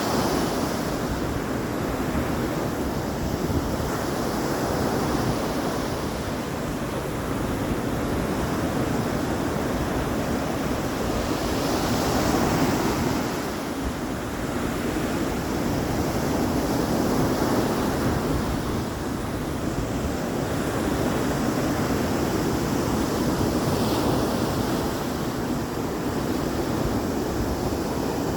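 Sea surf: waves washing ashore in a continuous roar that swells and ebbs every few seconds, with wind buffeting the microphone.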